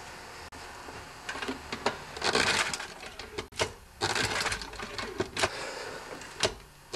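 Tecumseh 8 hp engine cranked over twice with its spark plug out and grounded on the cylinder head, in a check for spark. Each spin lasts about a second, with a few short clicks between.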